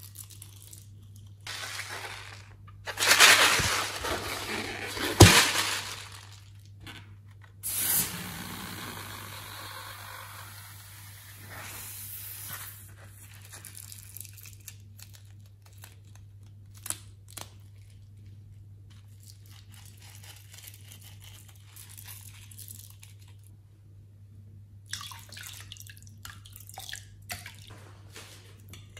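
Slime being squeezed, poured and stirred in a glass bowl: wet squishing sounds, loudest in the first few seconds with a sharp snap about five seconds in, then a softer wash of sound that fades. Small clicks midway as scissors cut a slime-filled balloon, and sticky crackling near the end as a spoon stirs, over a steady low hum.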